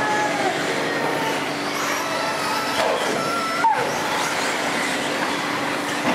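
Radio-controlled model cars racing on a dirt track: motor whine gliding up and down in pitch as they accelerate and back off, with one whine climbing and dropping away sharply a little before the fourth second, over a steady noisy hall background.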